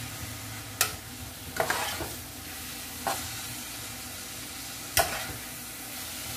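Seasoned ground beef sizzling in a small saucepan on a gas burner as a metal spoon stirs it. The spoon scrapes and clinks against the pan about four times.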